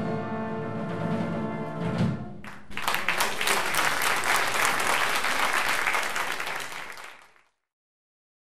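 Jazz big band's saxophones and brass holding the final chord over the rhythm section, ending on a last hit about two seconds in. Then the audience applauds, fading out near the end.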